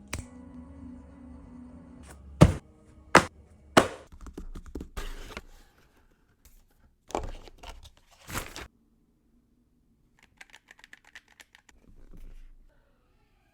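Handling sounds around a mechanical keyboard: three sharp hard knocks in quick succession, then rustling and a few duller thuds, and near the end a short run of faint rapid key clicks.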